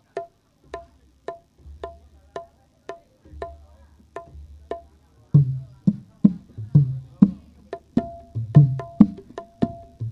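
Javanese traditional percussion music: a steady tapping beat of sharp strokes, each with a short pitched ring, about two to three a second. About five seconds in, a deep hand drum joins with heavy strokes woven between the taps.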